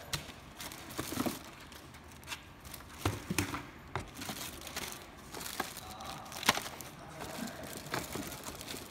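Plastic wrapping crinkling and rustling, with scattered sharp knocks, as plastic-wrapped plastic wheels and parts of a kids' ride-on car are shifted about in their cardboard box.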